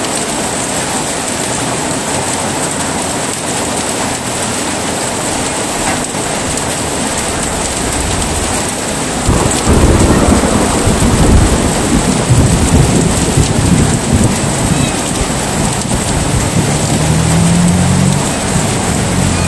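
Steady heavy rain, with thunder breaking suddenly about halfway through and rumbling on in long, deep rolls.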